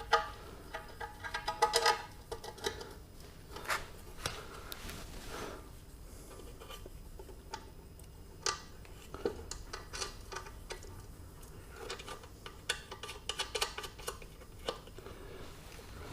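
Irregular metallic clinks, clicks and clatter of hand tools and metal parts being handled, with a busier run of clinks in the first couple of seconds.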